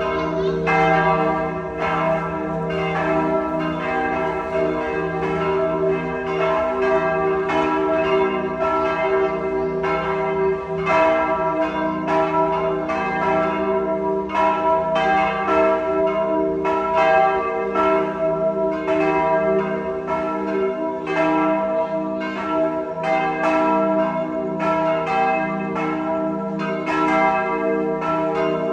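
Several church bells pealing together, struck about twice a second, their different pitches ringing on and overlapping in a continuous peal.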